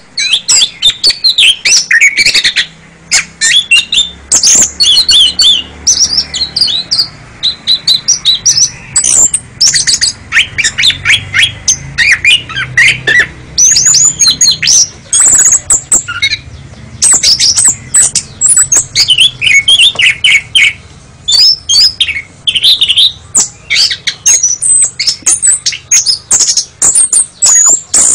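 Oriental magpie-robin (kacer) singing: a loud, fast, almost unbroken run of varied whistled and chirped phrases, with only brief pauses.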